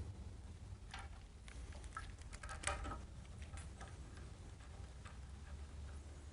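Scattered light clicks and taps of metal hydraulic hose fittings being handled and connected by hand, with a cluster of them about two and a half seconds in, over a steady low hum.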